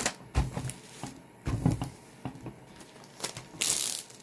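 Handling noise from a stiff diamond painting canvas being moved and smoothed flat: a few soft thumps and taps, then a brief loud rustle near the end.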